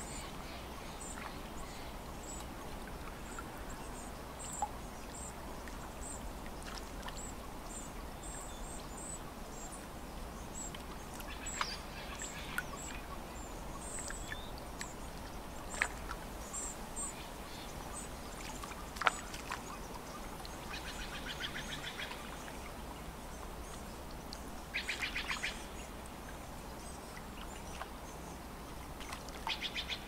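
Birds calling over a lake shore, with a steady background of gently lapping water. High thin chirps repeat throughout, and in the second half there are three bursts of rapid chattering calls. A few sharp clicks break in, the loudest just before the middle.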